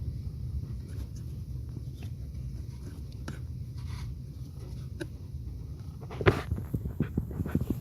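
Close handling noise in a car's footwell: rubbing and scraping of hands and the camera against trim and carpet over a steady low rumble, then a quick run of sharp knocks and clicks about six seconds in.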